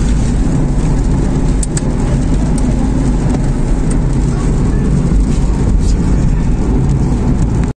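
Steady in-cabin road and engine noise of a Proton Saga sedan on the move, a low rumble that cuts off suddenly near the end.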